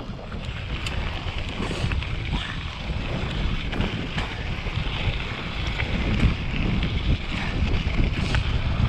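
Wind buffeting the microphone as a steady low rumble, with a hiss of rolling noise from a mountain bike moving along a dirt trail.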